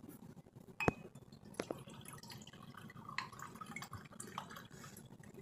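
Kitchenware being handled: one sharp clink with a short ring about a second in, then scattered lighter clicks and taps.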